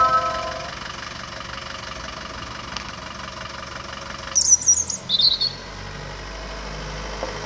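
An ice cream van's chime tune fades out in the first second, leaving the van's engine running low and steady. About four seconds in, a bird chirps loudly for about a second.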